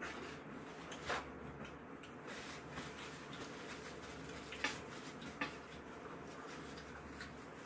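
Light table sounds during a meal: a few sharp clicks of cutlery against the pan and dishes, one about a second in and two more past the middle, with soft rustling of tissue and food being handled.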